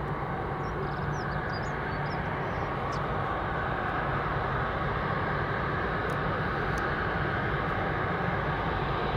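Airbus A330-243's two Rolls-Royce Trent 772B turbofans running at low taxi power, a steady hum that grows slightly louder as the airliner comes closer. A few faint bird chirps about a second in.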